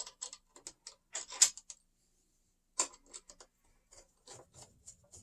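Small metallic clicks and ticks of screws being set and turned with a hand tool while a Slider plate is fastened to a Onewheel Pint X. The clicks come in irregular runs, pause for about a second, then resume at a few per second.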